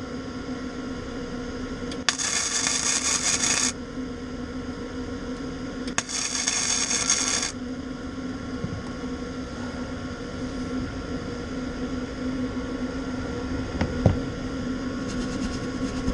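Two short MIG tack welds, each a crackling burst of about a second and a half starting sharply, about 2 and 6 seconds in, over a steady machine hum.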